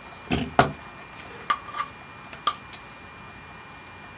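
Curling iron being handled: a few sharp plastic clicks and knocks, the first two the loudest, followed by lighter clicks in pairs.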